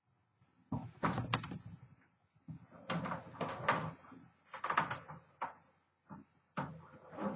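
1932 Smith Corona Sterling flat top manual typewriter being typed on: short bursts of sharp clacking key strikes in several clusters, with brief pauses between.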